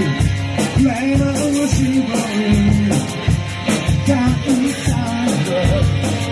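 Background rock song with a sung melody over drums and bass guitar.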